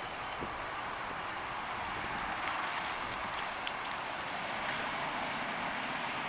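1990 Cadillac Brougham with its 5.0 L V8 driving away at low speed: a steady, even rushing sound of engine and tyres, with wind on the microphone.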